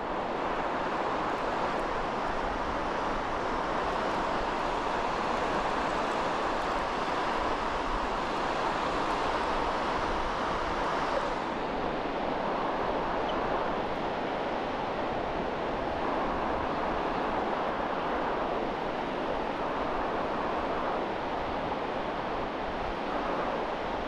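Steady wash of distant surf breaking on a flat sandy beach, an even rushing noise with no clear individual waves.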